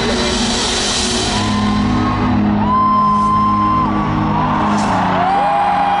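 Arena crowd cheering, whooping and whistling over a live band's sustained intro music, echoing in a large hall.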